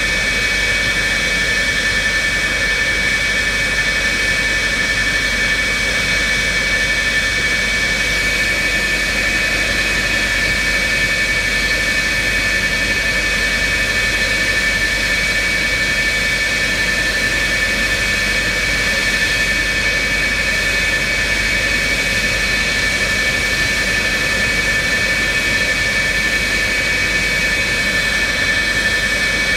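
McDonnell Douglas F-4E Phantom II's twin General Electric J79 turbojets running steadily on the ground, a constant high whine over an even rush with no change in pitch.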